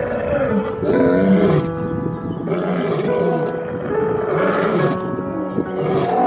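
A large animal's repeated low calls, each bending up and down in pitch, over background music with long held notes.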